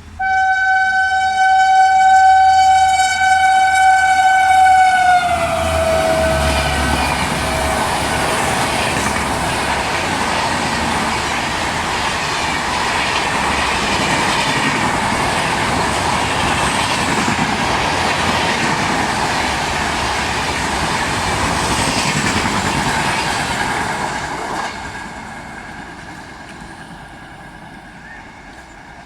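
WAP-5 electric locomotive's twin-tone horn sounding for about five seconds as the express approaches at speed, its pitch dropping as the locomotive passes. Then the coaches rush past, wheels clattering over the rail joints for about twenty seconds before the sound fades away near the end.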